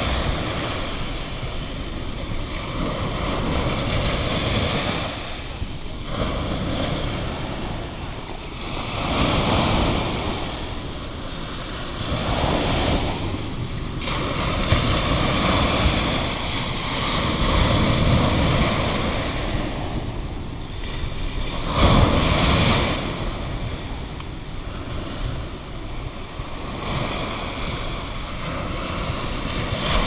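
Small sea waves breaking and washing up a sandy shore: a continuous surf hiss that swells and eases with each wave. There is one sharper, louder crash about two-thirds of the way through.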